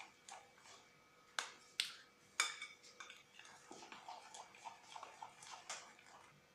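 Metal spoon stirring a thick butter and condensed-milk mixture in a glass bowl: faint, irregular clinks and scrapes of the spoon against the glass, with three sharper clinks between about one and a half and two and a half seconds in.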